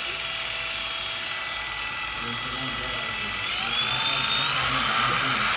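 Makita DBS180 cordless belt sander running, its motor whine rising in pitch and getting louder about four seconds in.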